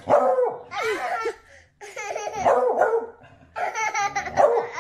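Beagle baying in three drawn-out, warbling calls of about a second and a half each, with a baby laughing along.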